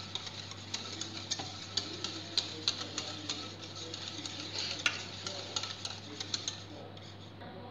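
Curd being whisked in a stainless steel bowl: quick, irregular clicking of the whisk against the metal, several strokes a second, thinning out near the end.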